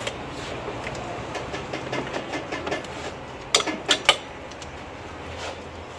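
Workshop background with a steady low hum, broken about halfway by three sharp clicks or knocks in quick succession.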